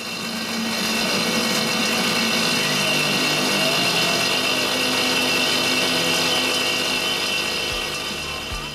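A power tool running steadily, swelling up in the first second and easing off near the end.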